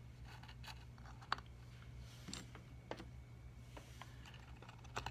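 Faint, scattered clicks of broken vase-glass pieces being set down and shifted on a wooden board, the sharpest about a second in, over a steady low hum.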